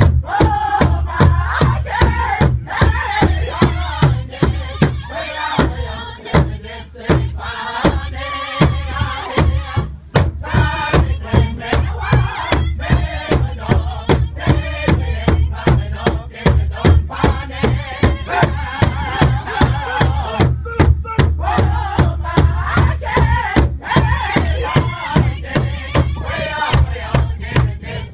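Powwow drum group singing together around a large hide drum, several drummers striking it in unison in a steady beat of about two strokes a second while they chant.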